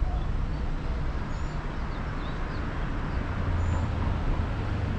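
Steady city street traffic noise, a low rumble of passing cars that swells briefly near the end, with a few faint high chirps over it.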